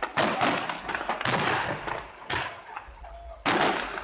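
Aerial fireworks going off in a rapid series of sharp bangs, each ringing out briefly, with a quieter lull before a loud burst near the end.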